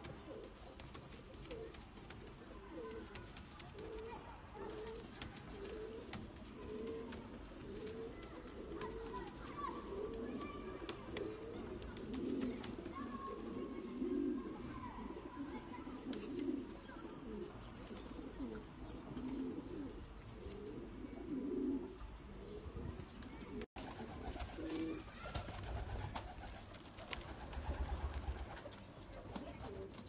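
Domestic pigeons cooing, a long run of low coos about one every three quarters of a second, loudest in the middle. A low rumble comes in near the end.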